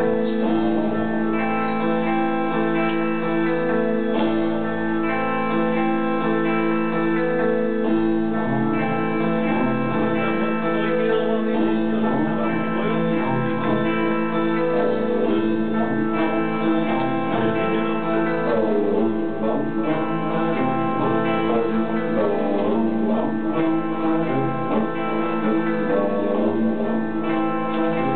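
Bulgarian tambura plucked in a running melodic line over a steady held drone, built up as a loop through an effects pedalboard.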